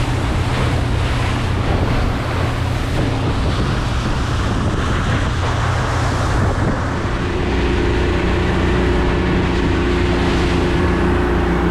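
Outboard motor running steadily as a center-console fishing boat travels at speed, with wind buffeting the microphone and the rush of the wake and spray. About seven seconds in the engine's tone becomes steadier and slightly louder.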